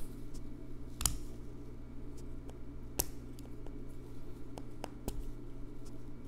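Black Leatherman Wave multitool being opened and handled: its metal handles and tools click and snap a few times, with the sharpest clicks about one, three and five seconds in.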